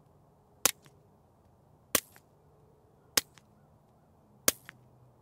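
Four suppressed .22 LR pistol shots from Walther PPK/S pistols wearing a CGS Group Siren 22 and an AWC Archangel Titanium suppressor, evenly spaced about a second and a quarter apart. Each is a sharp crack followed by a fainter click. After the first-round pop the two suppressors sound pretty close.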